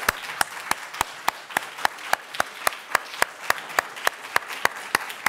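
Audience applauding, with one person's hand claps close to the microphone standing out as sharp, evenly spaced claps about three or four a second.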